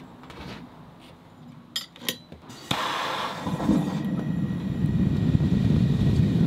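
Propane gas forge being lit: a few sharp clicks, then the burner catches suddenly about three seconds in and settles into a steady, low rushing roar.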